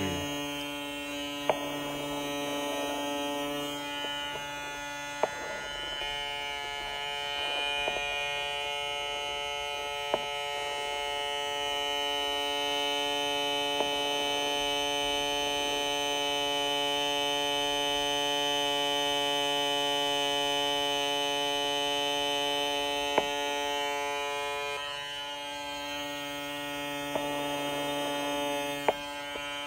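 Andis ProFoil 17150 cordless foil shaver running steadily: a continuous electric buzz, with a few brief clicks.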